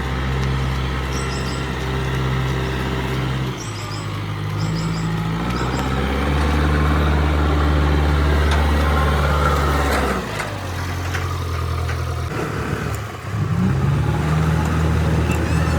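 Heavy diesel engine of earthmoving machinery running under varying load, its engine speed stepping down and rising again several times as it works. Faint high chirps come through now and then.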